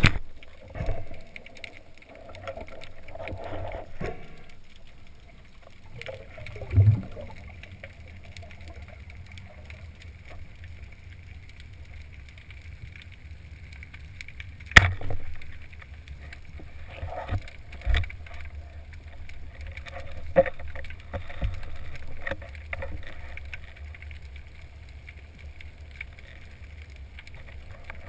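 Muffled underwater sound heard through a camera housing: a steady low rumble of moving water with a few soft knocks, and one sharp crack about halfway through, a speargun firing at a cuttlefish.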